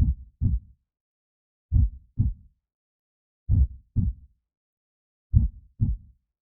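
Slow heartbeat sound effect: four low lub-dub double thuds, the two beats of each pair about half a second apart, the pairs repeating about every 1.8 seconds.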